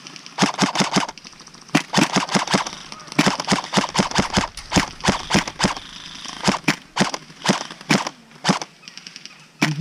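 Airsoft rifle firing in rapid strings of sharp shots, several a second, with short pauses between the strings.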